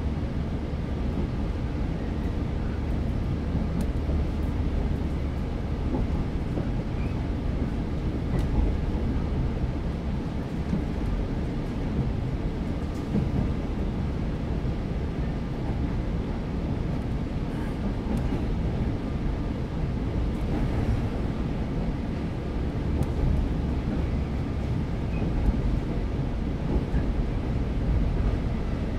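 Steady running noise inside a JR West 115-series electric multiple unit's motor car (KuMoHa 115-1513): traction motors and wheels on the rails.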